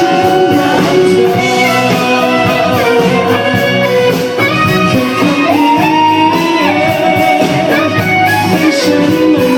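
Instrumental passage of a pop song with no vocals: a full band plays sustained chords, and a lead line slides up to a held note a little past halfway.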